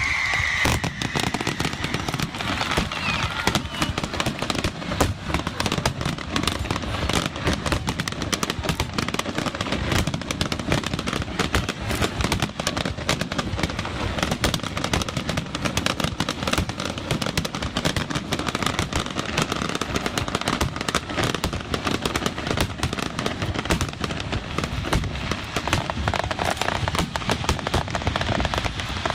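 Aerial fireworks display: a dense, unbroken barrage of bangs and crackling bursts.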